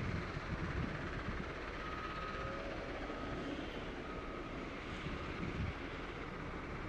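Caterpillar 972M XE wheel loader's diesel engine running steadily as the machine works, a constant low rumble. A few faint short high tones sound around the middle.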